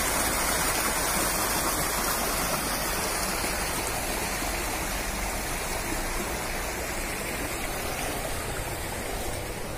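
Steady rush of flowing water, easing slightly towards the end.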